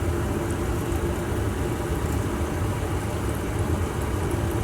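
Aquarium equipment in a fish room running steadily: a constant low hum under an even, watery hiss.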